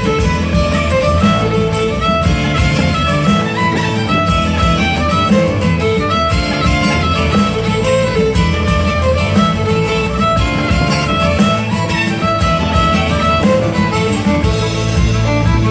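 Music with a violin playing the melody over a steady accompaniment with a strong low end.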